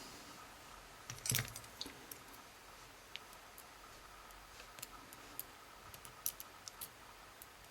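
Small metal lock parts and tools being handled: sparse, faint clicks and taps, with one louder click about a second in and a few quick light ticks later on.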